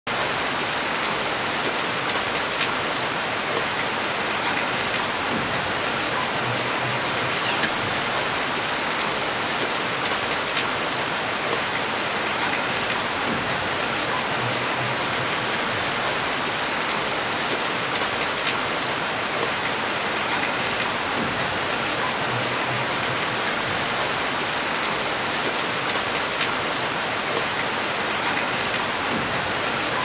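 Heavy rain falling steadily, an even dense hiss with individual drops ticking now and then. A faint low hum recurs about every eight seconds.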